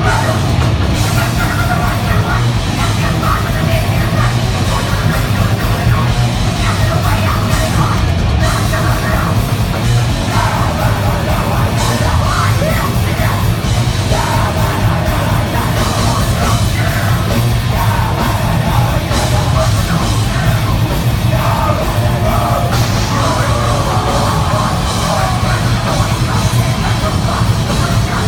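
Live heavy metal band playing loud and dense, with a yelled vocal over distorted guitars and drums.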